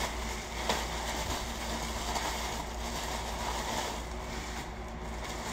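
Plastic bubble wrap rustling and crinkling as hands unwrap a small item, with one sharp crackle about a second in; the rustling thins out near the end.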